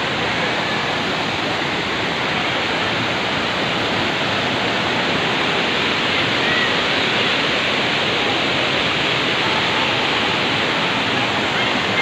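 Steady rush of falling and tumbling water from a waterfall and the rocky stream below it.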